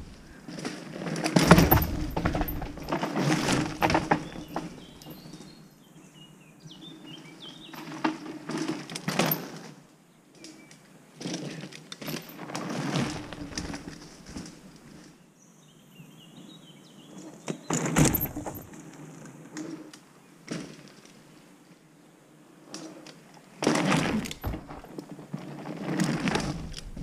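Mountain bike riding past on a dirt forest trail several times: knobby tyres rolling and crunching over dry leaf litter, swelling and fading with each pass, with rattling clicks from the bike and a sharp clatter about two-thirds through. Birds chirp faintly in the quieter gaps.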